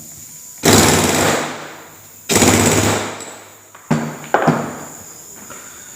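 Impact wrench hammering on the alternator pulley nut of a Suzuki Wagon R integrated starter generator: two rattling runs of about a second each, then two short blips near four seconds in. The nut is reverse-threaded and is being run down counterclockwise to full tightness.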